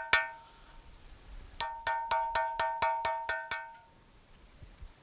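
Hammer tapping a steel tool down into a broken stud in a tractor's final drive casting, each blow giving a sharp metallic ring. One blow lands right at the start, then after a short pause comes a quick run of about nine blows, roughly five a second.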